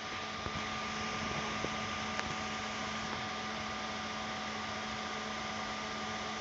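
Steady electrical hiss with a low hum and a fainter higher whine, held level throughout, with a few faint clicks in the first two seconds or so.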